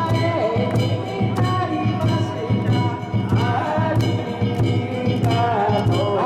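A solo singer with sliding, ornamented vocal lines over instrumental accompaniment with a steady beat.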